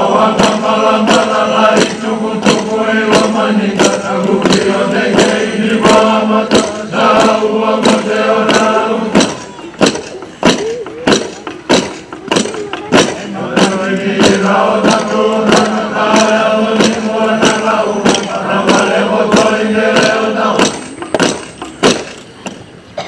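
Men chanting together in unison in a Fijian ceremonial chant, with regular hand claps about two a second. The chant breaks off for a few seconds in the middle while the claps carry on, then it resumes and ends shortly before the claps stop.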